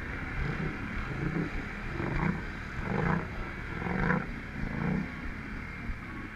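ATV engine revved in short repeated bursts, about one a second, over a steady idle.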